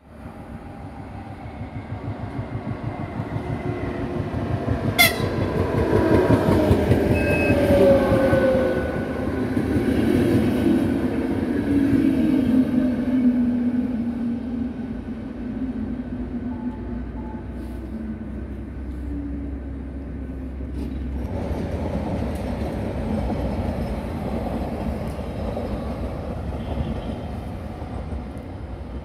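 České dráhy class 471 double-deck electric multiple unit pulling in and braking: wheel and rail noise builds, and the motors' whine slides down in pitch as it slows, dying away after about fourteen seconds. A short sharp squeak about five seconds in.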